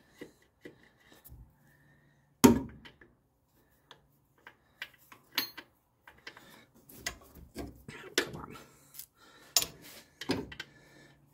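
Metal clinks and knocks from hand work on the alternator mounting in a car's engine bay. One loud knock comes about two and a half seconds in, then a run of lighter, irregular clicks and taps.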